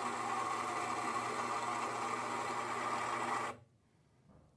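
Baratza Forte flat-burr coffee grinder running steadily as it grinds beans at its finest setting, then cutting off suddenly about three and a half seconds in.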